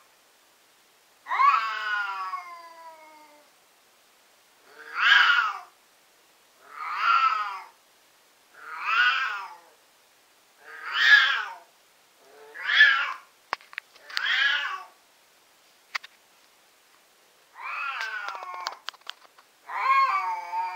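A Siamese cat yowling over and over, about one loud drawn-out call every two seconds, the first longer and falling in pitch; the uploader puts the shrieking down to the cat being in heat. A few sharp clicks fall among the later calls.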